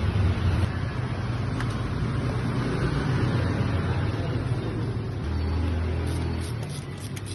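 Toyota Innova engine running steadily, with a few light clicks near the end.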